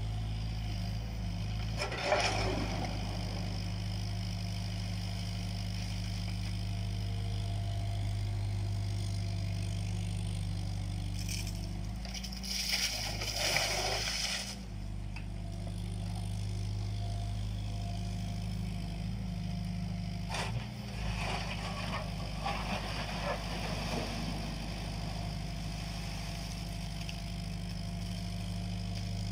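JCB 8050 mini excavator's diesel engine running steadily as it works its hydraulics, with bursts of scraping and clattering as the bucket digs and tips soil and stones into the metal trailer. The longest and loudest burst comes about halfway through.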